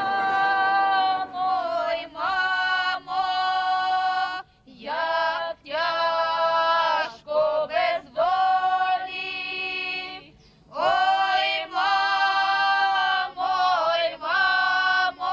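Women's voices singing unaccompanied in long held phrases with vibrato, broken by short pauses.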